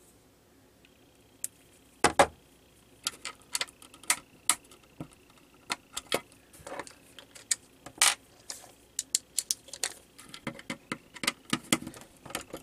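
Hands working parts loose inside the plastic case of an opened power-supply brick: an irregular run of sharp clicks, taps and plastic clatter that starts about two seconds in, loudest around two and eight seconds in.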